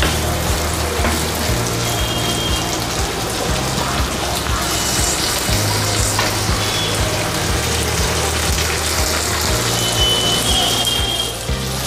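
Pork, tomato and green peas sizzling steadily in oil in a kadai over a gas flame, with a soft background tune underneath.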